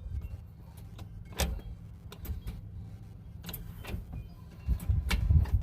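Short-throw shifter on a five-speed manual gearbox being worked through the gears: a series of scattered clicks and knocks over a low rumble, the busiest cluster near the end.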